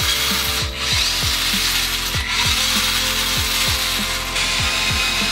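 Small brushed electric drive motor and plastic gearbox of a toy-grade four-wheel-drive RC truck running steadily with the wheels spinning free, a low pulse repeating about three times a second. It is a bench test of the motor just cleaned of metal debris and refitted.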